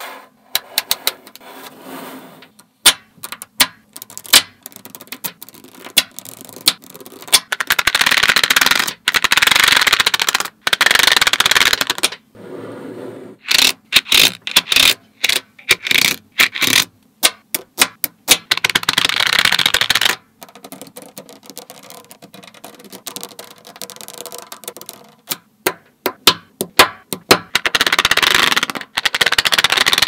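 Small magnetic balls clicking sharply as they snap together one by one. Between the clicks come stretches of dense rattling scrape as rows of balls are shifted and a card is drawn across a sheet of them.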